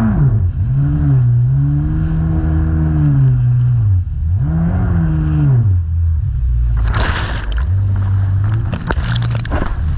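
Jet ski engine revving up and down over and over as the throttle is worked, its pitch rising and falling in swells. About seven seconds in and again near nine seconds there are short bursts of rushing noise.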